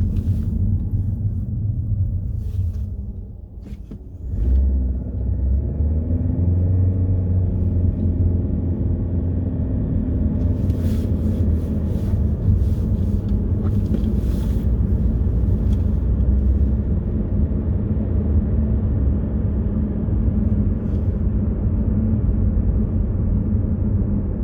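Car engine and road rumble, heard from inside a moving car. The rumble drops briefly about three seconds in, then returns as the car accelerates, with an engine tone rising for a few seconds before it settles into steady cruising.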